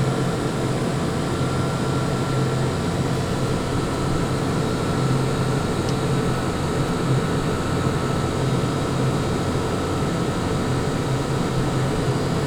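Car engine idling steadily with the air conditioning blowing, a constant low hum under an even rush of air.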